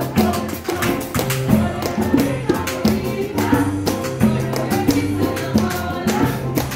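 A live band playing an upbeat piece: a steady, repeating bass line and keyboard chords under a quick, even percussion beat, with a tambourine-like jingle.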